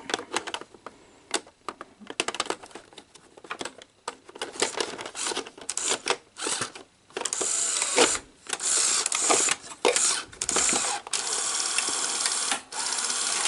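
Sony SL-HF600 Betamax VCR's cassette mechanism taking in a tape: a string of clicks and clunks, then from about seven seconds in a steady mechanical whirring with a couple of short breaks as the mechanism runs.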